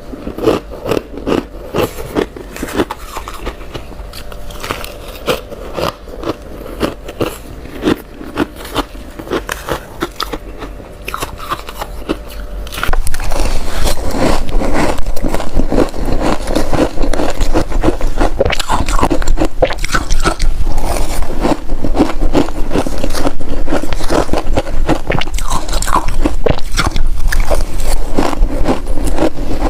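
Ice being bitten and chewed close to the microphone, each bite a crispy crunch. For the first dozen seconds the bites come separately, a few a second. Then the sound turns suddenly much louder into dense, continuous crunching.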